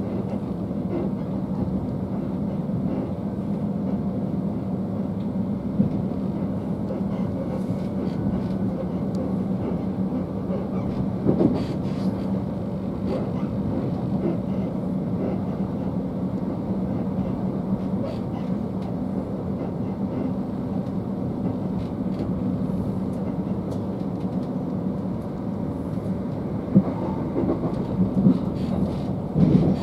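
Inside a Southern Class 377 Electrostar electric multiple unit running at speed: a steady rumble of wheels and carriage with a constant low hum. A few sharp knocks stand out, one about six seconds in, one near the middle and several close together near the end.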